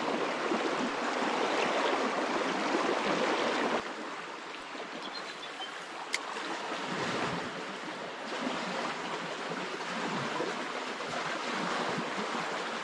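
River current running over a rippled, stony bed: a steady wash of flowing water, louder for the first four seconds and softer after that. A single faint click about six seconds in.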